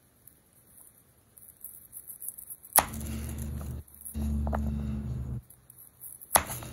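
Kitchen knife cutting baby carrots on a cutting board: a sharp knock of the blade on the board nearly three seconds in and again near the end, with duller cutting and handling noise between.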